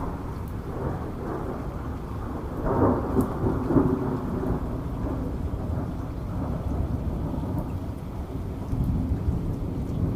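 Rolling thunder rumbling over steady rain, the rumble swelling about three seconds in.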